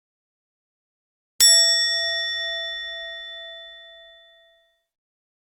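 A single bell-like ding, struck once about a second and a half in and ringing out with a clear pitch, fading away over about three seconds.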